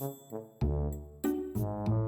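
Background music: plucked or struck notes over a deep bass line, in a bouncy rhythm.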